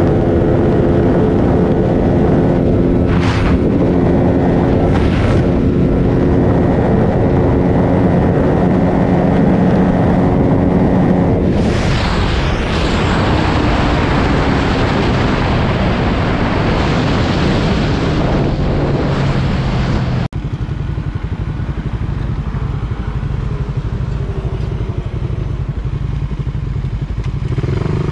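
Single-cylinder 150-class motorcycle engine held at top speed, a steady high-revving note under wind rush. About twelve seconds in the engine note drops away under a loud rush of wind. After an abrupt cut about twenty seconds in, motorcycle engines idle at a standstill.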